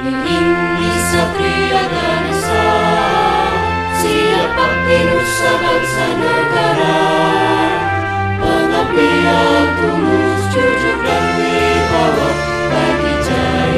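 Background music: a steady instrumental track of sustained, changing chords.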